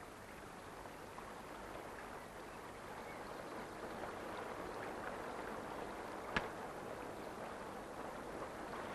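Shallow stream flowing over stones, a steady rushing that slowly grows louder, with a single sharp click a little past the middle.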